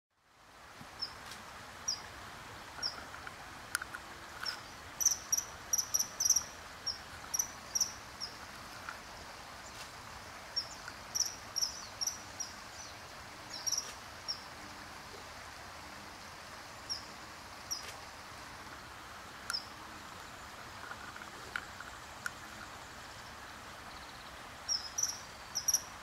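Common kingfisher calling: short, high, sharp notes, some single and some in quick runs of three or four, repeated irregularly over a steady background hiss.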